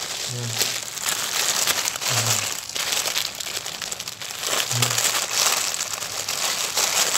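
Clear plastic polybag crinkling and crackling as it is handled and squeezed, a T-shirt sealed inside.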